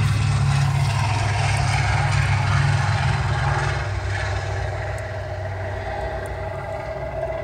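Vintage propeller bomber's piston engines droning at high power with a low, throbbing propeller note, fading as the plane rolls away down the runway.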